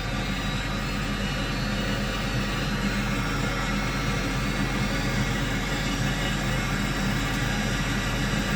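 Commercial Viessmann gas boiler running after being switched on: a steady rushing of its combustion fan and burner, with faint steady tones above it.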